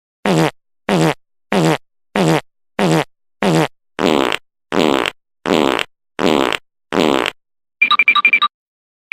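A sound effect of eleven short, identical buzzy blasts in an even rhythm, about two-thirds of a second apart. Near the end a different effect starts: a rapid electronic trilling ring.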